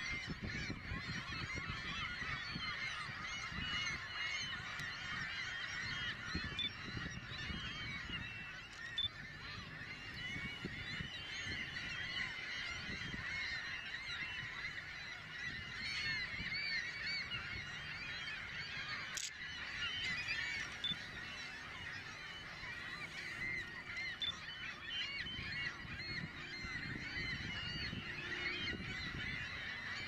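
A large flock of gulls calling, many short overlapping cries that never let up, over a steady low rumble.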